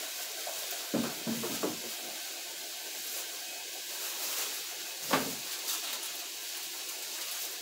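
A steady hiss of kitchen room noise, with a few short knocks and bumps from someone moving about out of sight: a cluster about a second in and one sharper knock about five seconds in.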